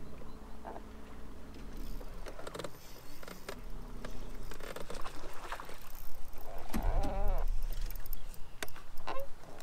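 Bass boat on open water with wind and lapping water. A low electric trolling-motor hum fades out in the first second or two. Scattered sharp clicks come from a spinning rod and reel as a Ned rig is cast and worked, and a fish is hooked, with a short pitched sound about seven seconds in.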